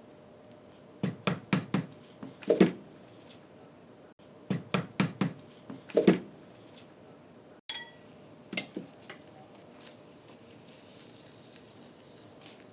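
Light metal tapping as a small cap is driven onto a milling machine's bearing case: two runs of about four quick taps, each ending in a heavier knock, then a couple more taps.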